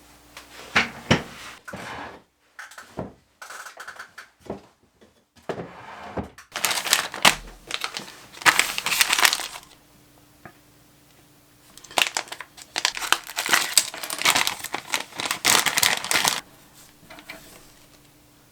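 Hands handling materials: crinkling and rustling in irregular bursts, with scattered sharp clicks.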